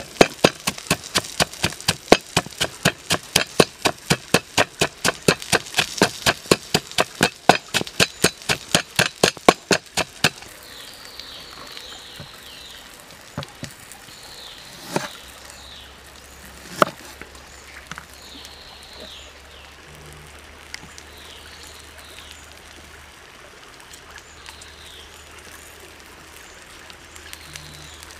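Wooden pestle pounding chilies and salt in a wooden mortar, a steady rapid series of dull knocks that stops about ten seconds in. After it, a bird chirps in short, high, falling phrases every couple of seconds, and a knife knocks twice on a board while a lime is cut.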